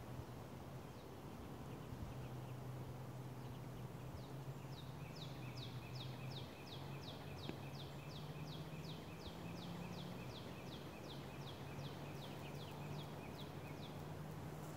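Quiet woodland ambience with a low steady hum underneath. From about four seconds in, a bird calls a long run of quick, high falling notes, about two or three a second, which stop shortly before the end.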